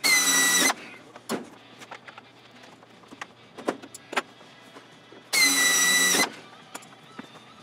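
Chicago Pneumatic 1/4-inch air drill running in two short bursts of under a second each, a steady high whine that drops slightly as it spools down, drilling #40 holes through .016 aluminum wing skin. Light clicks and taps come between the bursts.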